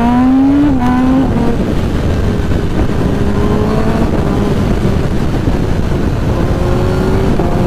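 Kawasaki ZX-10R's inline-four engine accelerating hard. Its pitch climbs, drops at an upshift about a second in, then rises slowly under a heavy rush of wind over the microphone at high speed.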